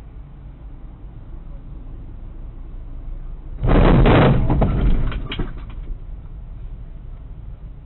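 A sudden loud crunching impact about three and a half seconds in, followed by a couple of seconds of scraping and crackling: a semi-truck's trailer striking the truck at walking pace. A low, steady rumble of idling diesel engines runs underneath.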